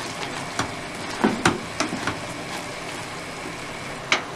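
A spoon stirring macaroni through thick cheese sauce in a metal pot, with scattered knocks and scrapes against the pot: a cluster about a second and a half in and a sharp one near the end. Under them runs a steady sizzle of the sauce cooking on low heat.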